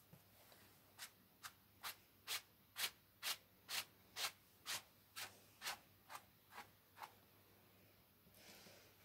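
Paintbrush scrubbing paint onto canvas in quick short strokes, about two a second, fourteen in all, stopping about seven seconds in.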